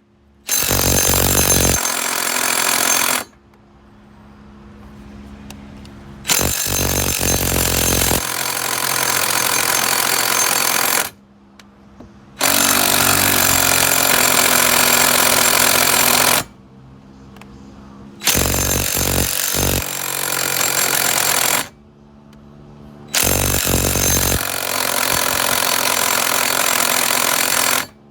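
Impact wrench hammering in five bursts of two to four seconds each on a seized downpipe nut at the turbo, with a low steady hum in the pauses between bursts.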